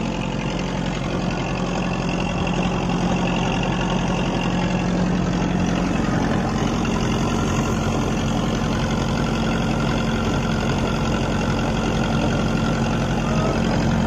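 Wooden fishing boat's engine running steadily under way, its note rising slightly about six seconds in, over the rush of water along the hull.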